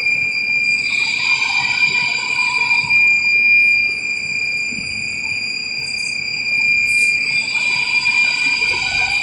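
CNC lathe cutting metal, giving a loud, steady high-pitched whine. A rougher scraping sound joins about a second in and again near the end.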